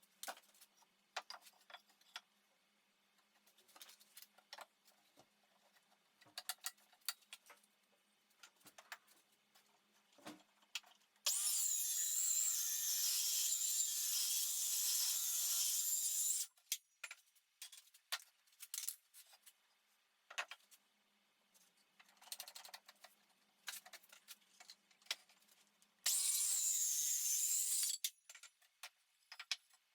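Power saw ripping a timber plank lengthwise, running steadily for about five seconds in the middle and again for about two seconds near the end. Between the cuts there are scattered clicks and knocks from handling the wood.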